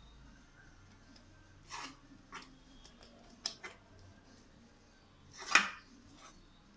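Scattered soft handling noises from hands rolling sticky coconut ladoo mixture and setting the balls down in a pan: a few brief rustles and two light clicks, then one louder short rustling burst about five and a half seconds in.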